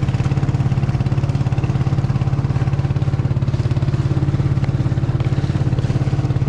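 Small engine of a motorized outrigger boat (bangka) running steadily under way, with a fast, even pulsing beat.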